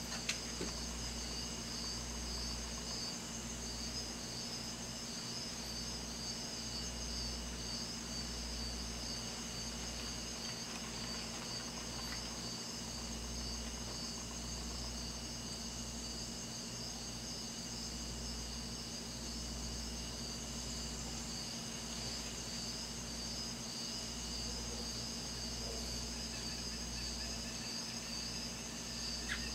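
Night insect chorus: a steady, high, pulsing trill over a low rumble.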